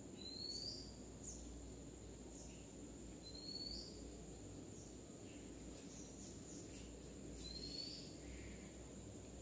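Quiet background with a steady high-pitched drone and three short rising chirps, about every three to four seconds, plus a few faint ticks in the second half.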